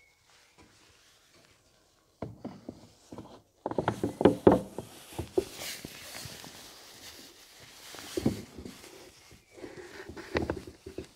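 Hinged cab air filter cover on a John Deere 8R being handled and swung shut: a run of irregular plastic knocks and clacks, loudest about four seconds in, with a stretch of rustling between them and more knocks near the end.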